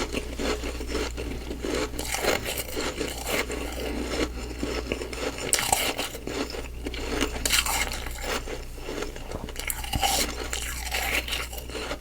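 Close-up crunching and chewing of humidifier frost ice: an irregular run of crisp crunches, several a second, with short pauses between mouthfuls.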